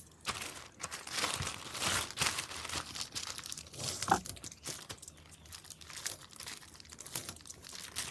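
Parcel packaging being crinkled and torn open by hand: irregular rustling and ripping, with a brief squeak about four seconds in.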